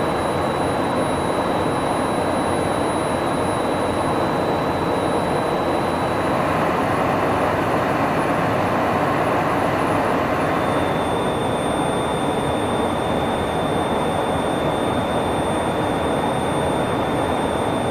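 Steady roar of jet engines and rushing air heard inside an aerial refueling tanker in flight, with a faint high whine that steps slightly lower about eleven seconds in.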